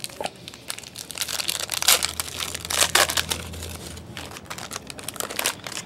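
A trading card pack's wrapper being torn open and crinkled by hand, with irregular crackling that peaks twice around the middle.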